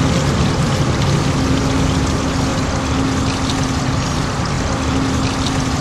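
A motor running steadily, with a constant hum over a rushing noise.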